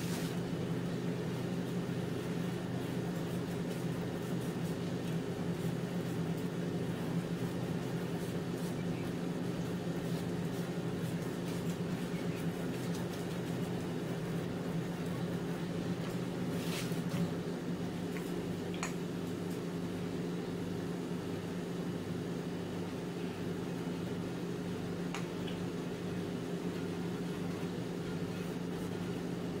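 A steady low hum from a running household appliance motor, with a few faint light taps now and then.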